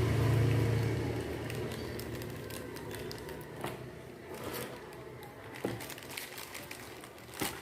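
Plastic packaging crinkling and rustling as a pair of cycling glasses is handled and packed away, with three sharp clicks, the last near the end. A low hum fades out in the first second.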